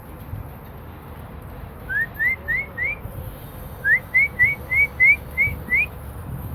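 Short rising whistled notes repeated in two quick runs, four and then seven, at roughly three a second.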